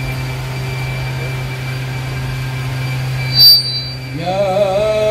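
A steady low hum, broken by a short, loud pop about three and a half seconds in. About a second later a man's voice begins a melodic Quran recitation, holding a long wavering note.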